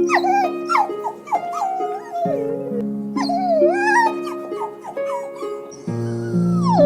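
Dog, most likely a puppy, whimpering and yipping in short high cries that bend and fall in pitch, several a second, over soft background music. A long sliding tone falls in pitch near the end.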